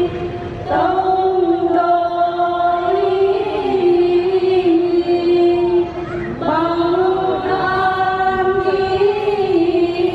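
Procession participants chanting a hymn in unison, holding long notes that stay mostly on one pitch with small steps up and down, with short breaks about half a second in and again about six seconds in.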